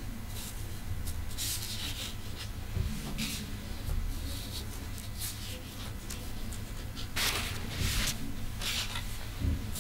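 Large sheets of drawing paper rustling and sliding against one another as they are leafed through and turned over, in a few brushing bursts, the loudest near the end. A steady low hum sits underneath.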